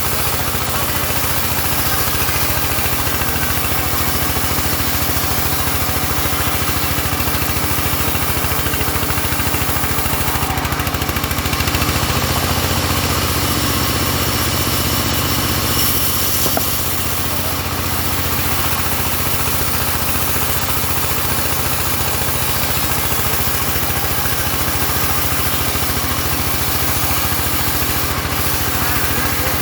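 Engine of a portable sawmill running steadily, with a steady hiss above its drone. The engine's tone shifts briefly around the middle.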